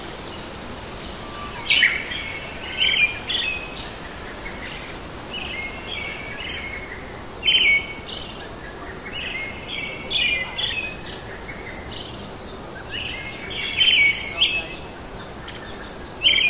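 Birds calling with short, repeated chirps, many of them, over a steady background hiss.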